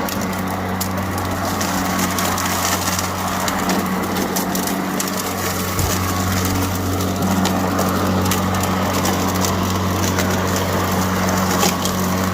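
Greenworks 80V battery push mower running in mulch mode, its blade motor a steady low hum, with a crackle of many small ticks as dry leaves and debris are chopped under the deck.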